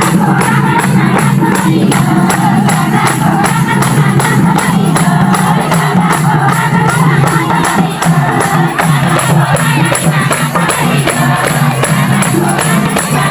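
Loud Nepali festival dance music with singing and a steady, fast beat, over crowd noise.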